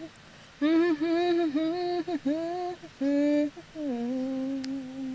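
A woman humming a slow tune without words: a few short phrases of held notes, then one long, low note that sinks slightly near the end.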